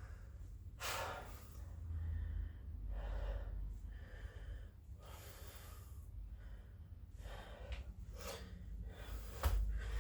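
A man breathing hard from exertion, with loud separate breaths every second or two. A thump near the end.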